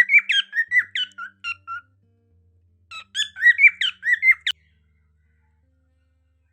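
Cockatiel chirping: two bouts of quick, repeated, rising chirps, the second cut off abruptly about halfway through, over faint background music.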